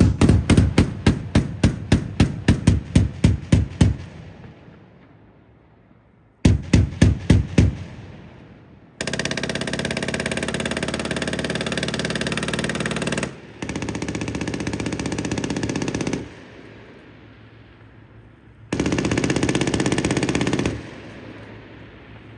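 Bradley fighting vehicle weapons firing on a range. It opens with the 25mm autocannon firing single rounds about three a second, about thirteen in a row, then a short burst of five. Three long, very rapid bursts follow, lasting about four, three and two seconds, typical of the coax machine gun.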